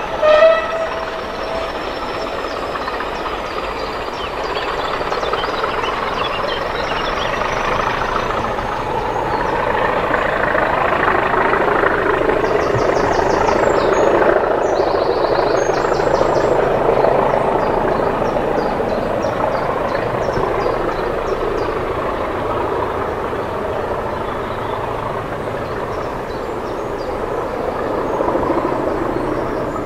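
A pair of English Electric Class 20 diesel locomotives opening up to full power as they haul a train away, the engine noise building over the first half and then slowly easing off with distance. A horn note sounds right at the start.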